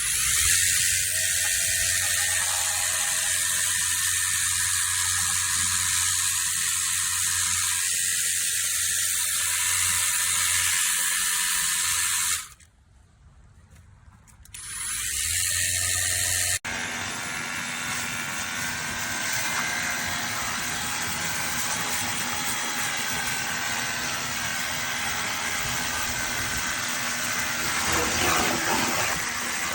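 Cordless handheld pressure washer running: a small motor-driven pump humming under a steady spray hiss. It stops about 12 seconds in and starts again two seconds later; near 17 seconds it gives way to a different steady mechanical noise.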